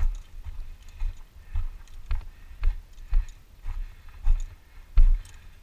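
Footsteps on a gravel canyon floor, about two steps a second, each a dull low thump with a light crunch of small stones.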